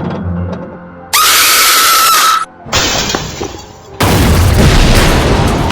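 Edited-in sound effects cutting abruptly one after another: a loud burst of noise with a held tone about a second in, a second burst near three seconds, then a loud booming rumble from about four seconds on.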